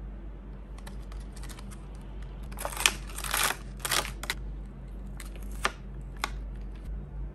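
Clear stamp sheet crinkling as stamps are peeled off its plastic backing: a run of short, irregular rustles and crackles, busiest and loudest about three to four seconds in.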